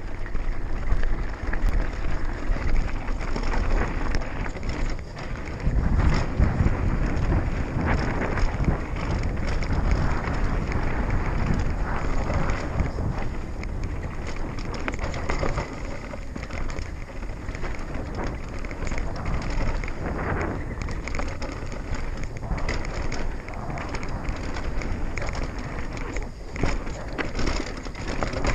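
A 2016 GT Fury World Cup downhill mountain bike riding fast down a dirt and gravel trail: a constant rush of tyres on the dirt, with frequent rattles and knocks from the bike over bumps.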